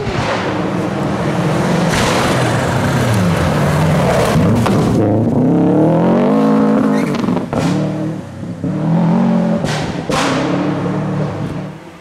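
Rally car engine revving hard on a gravel stage, its pitch climbing and dropping several times with gear changes and lifts off the throttle as it approaches and passes, with a few sharp cracks late on. The sound falls away suddenly just before the end.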